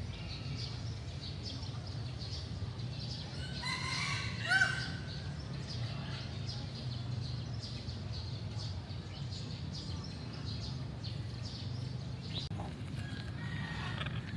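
A domestic-type fowl crows once, a short harsh call about four seconds in. A fainter call follows near the end, over a steady low hum.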